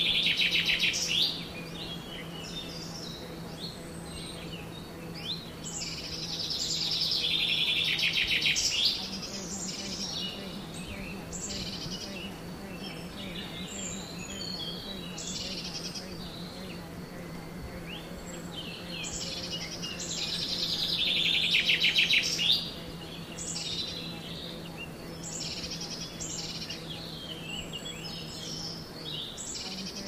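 Woodland birdsong: several birds chirping and calling, with a rapid trill that grows louder over a few seconds and then stops abruptly, once near the start, again around eight seconds in and again around twenty-two seconds in. A low steady hum runs underneath.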